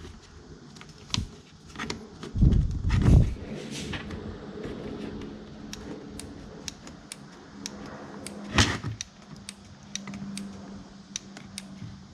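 Handling noises: scattered small clicks and ticks, with a cluster of louder knocks a few seconds in and another single knock past the middle.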